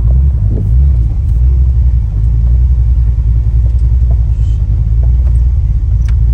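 Fox-body Ford Mustang engine idling with a steady low rumble.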